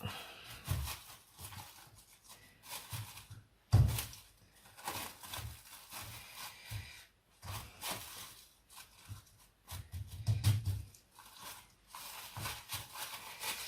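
Irregular knocks, clicks and clatter of kitchen things being handled, with the loudest knock about four seconds in and a few dull thuds around ten seconds.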